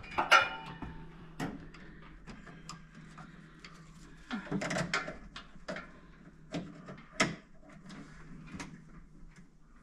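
Scattered clicks, taps and scrapes of electrical wire and metal being handled inside an open breaker panel while a new circuit is wired in, with a few sharper knocks about half a second in, at about a second and a half, and at about seven seconds.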